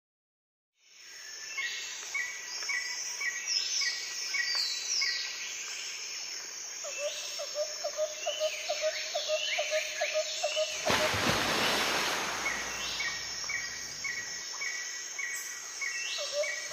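Birds chirping and calling, fading in about a second in: repeated short chirps and quick sweeping whistles, with a fast run of calls in the middle. From about eleven seconds a loud steady hiss joins them until just before the end.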